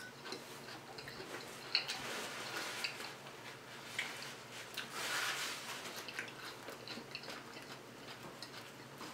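Quiet close-microphone chewing of a mouthful of spinach and spring-mix salad, with small scattered mouth clicks and soft crunches.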